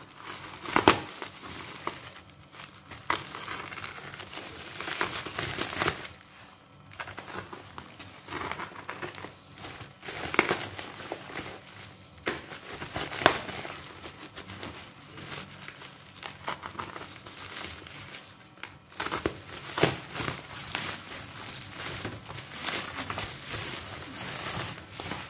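Plastic courier mailer bag and bubble wrap crinkling and rustling as a parcel is pulled open by hand, in an irregular run of crackles with a few louder handling noises.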